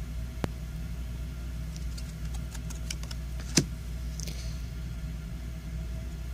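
Trading cards being handled and flipped through: a few light clicks and taps, with one sharper click about three and a half seconds in, over a steady low background hum.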